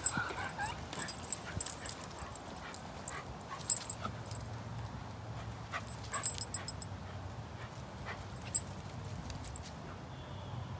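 Golden retriever giving a short, high whine near the start while fixed on a squirrel, followed by a scatter of sharp clicks.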